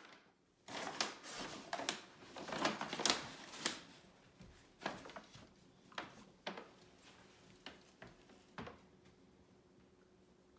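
Paper shopping bag rustling and crinkling on a tile floor, a dense crackle for the first few seconds, then about half a dozen single sharp crinkles that die away.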